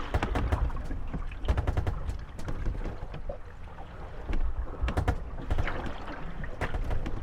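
Moored gondolas rocking on small waves, their hulls knocking and creaking against each other in bursts of rapid clatters, over water lapping at the boats.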